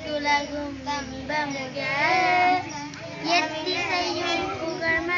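Schoolchildren singing a prayer song together.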